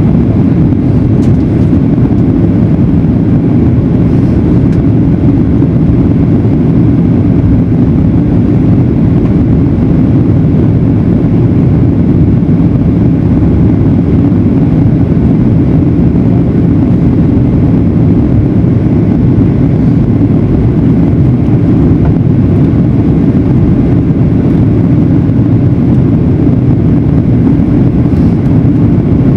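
Steady low drone of a Boeing 737-900ER in flight, its CFM56-7B jet engines and the rush of air along the fuselage, heard from inside the cabin.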